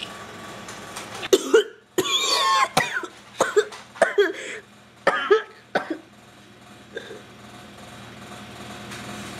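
A person coughing and gasping in a string of harsh bursts over a few seconds, with a wavering, strained cry about two seconds in, acted as a dying victim choking.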